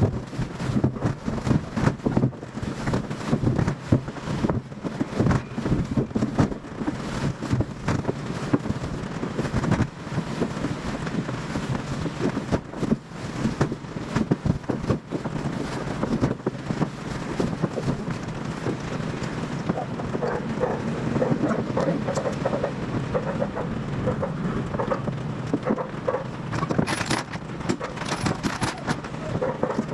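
Wind buffeting and rumbling on the microphone over the steady running noise of a moving vehicle. The gusts are heaviest in the first half, then settle into a steadier rush.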